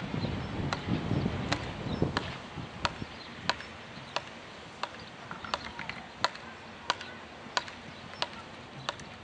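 Horse cantering on arena sand, a sharp click at each stride about every two-thirds of a second, with low thudding of hooves in the first two seconds.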